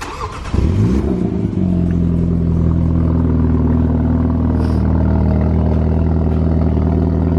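Mini John Cooper Works GP3's turbocharged four-cylinder engine starting about half a second in, flaring up in revs, then settling to a steady idle.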